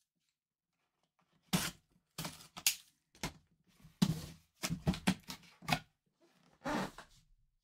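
Cardboard box being opened by hand: the foil seal sticker tearing and the cardboard lid rubbing and knocking. It comes as a string of short bursts, starting about a second and a half in and stopping shortly before the end.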